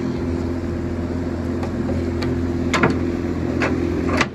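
New Holland LS160 skid steer's engine idling steadily, with a few sharp metallic clicks in the second half as hydraulic hoses with flat-face couplers are uncoupled.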